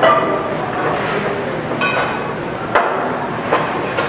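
Crockery and cutlery clinking and knocking in a busy buffet dining room: a ringing clink at the start, another just before the middle, then a couple of sharper knocks, over a steady background din.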